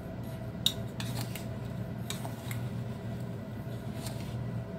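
A metal spoon scooping salt from a bowl: scraping, with several sharp clinks of spoon against bowl and one louder clink about two-thirds of a second in.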